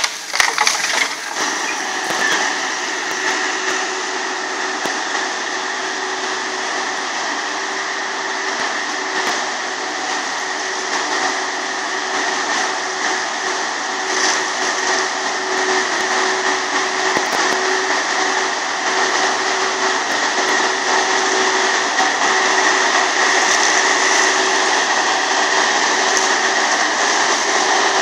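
Galotrax 300 tracked forestry mulcher running under load, its engine and spinning mulching rotor making a steady mechanical drone with a high whine, a little louder near the end.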